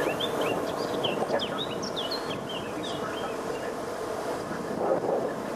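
Steady rushing road and wind noise from travelling along the road. Over it, a bird sings a quick series of short, high chirps for about the first three seconds.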